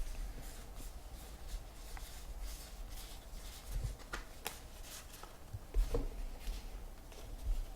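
Baseball trading cards being handled and flipped through: light rustling and small clicks of card stock sliding against card stock, with a couple of soft knocks about six seconds in.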